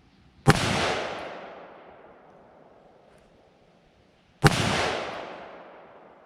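Two rifle shots about four seconds apart, each followed by a long echo that rolls away over a second or two.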